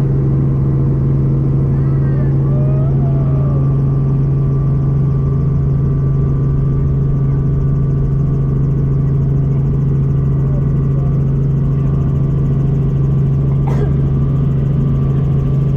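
Robinson R44 helicopter's piston engine and rotors running with a steady low drone, heard from inside the cabin.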